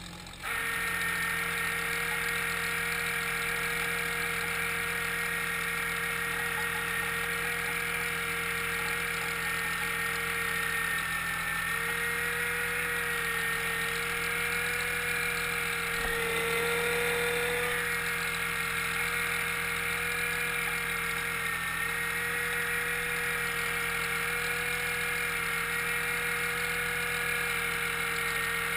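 Fishing trawler's engine and deck machinery running steadily: a constant hum with a steady whine and higher whines that waver slightly in pitch.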